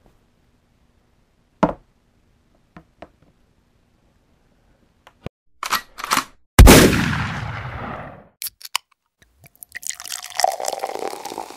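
Intro sound effects: a few sharp metallic clicks, then about six and a half seconds in a single loud gunshot with a long echoing tail. A couple more clicks follow, and near the end a fizzing, crackling hiss.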